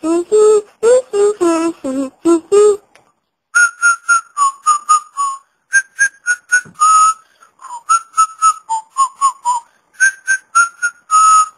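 A person whistling a tune in quick, short notes, beginning about three and a half seconds in. Before that comes a few seconds of wordless singing or humming.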